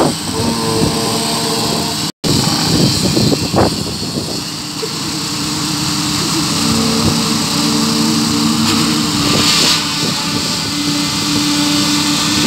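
Engine of construction machinery running steadily with a constant hum during a concrete pour, with a few knocks and rattles in the first seconds. The sound cuts out for an instant about two seconds in.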